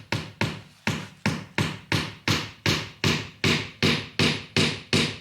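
A hammer driving a nail into wood with a steady run of sharp blows, about three a second.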